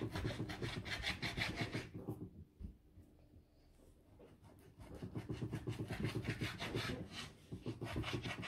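Kitchen knife sawing back and forth through raw beef onto a wooden cutting board, rapid scraping strokes, in two spells with a pause of about two seconds in the middle.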